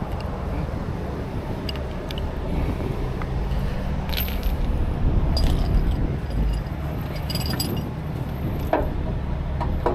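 Steel recovery chain and frame hook clinking and jangling as they are carried and hooked under the truck's frame, with scattered sharp clinks over a steady low rumble.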